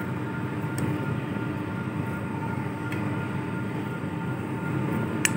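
Steady droning background noise with faint humming tones, like a running motor or fan; a light click near the end.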